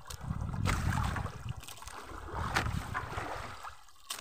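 Wind buffeting the microphone over choppy sea water washing against a small outrigger fishing boat. The low rumble swells and fades in gusts and drops away briefly near the end.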